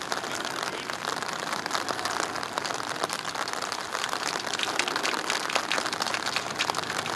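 Rain pattering steadily, a dense hiss of small drop clicks.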